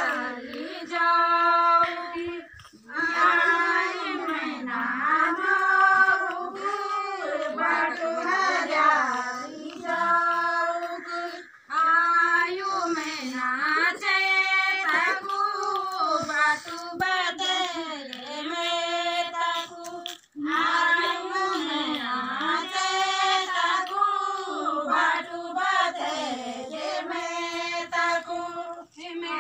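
Women singing a Garhwali Holi folk song together in unison, a high, repeating melody in sung phrases a few seconds long with short breaks between them.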